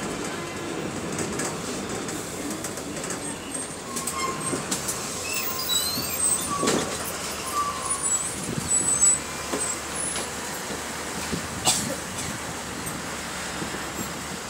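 Bus terminus din: city bus engines running as buses pull in and move off, with scattered short high-pitched squeaks and a couple of sharp sounds, one about two-thirds of the way in.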